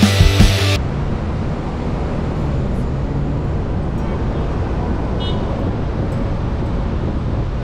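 Rock music cuts off under a second in, giving way to steady low traffic rumble from a city street.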